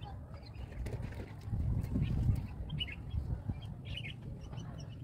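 Small birds chirping, scattered short chirps over a low steady rumble.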